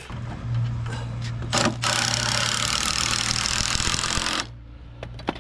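Cordless impact driver running steadily as it drives a screw into pressure-treated lumber. It stops about four and a half seconds in.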